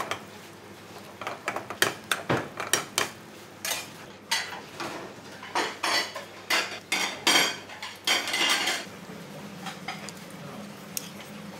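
Metal pans and cooking utensils clattering in a busy kitchen: a run of sharp clinks and knocks, with one longer scrape about eight seconds in, then quieter with a low steady hum.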